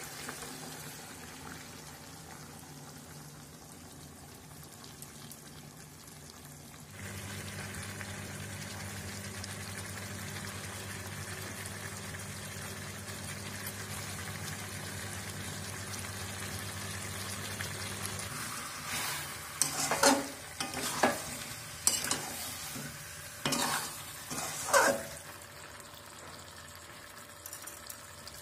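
Chicken curry sizzling in a metal wok, the sizzle growing louder a few seconds in. About two-thirds of the way through, a metal spatula scrapes and knocks against the wok in a series of sharp, loud strokes.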